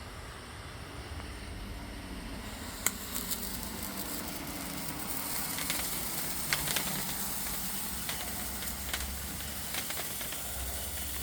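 Firework fountain hissing as it burns, swelling to a stronger spray about two to three seconds in. A sharp crack comes about three seconds in, with scattered crackles after it.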